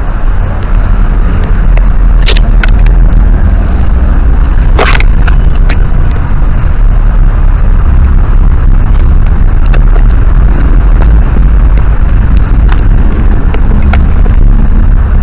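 Loud, steady low rumble on the microphone, with a few short sharp clicks scattered through it; the strongest click comes about five seconds in.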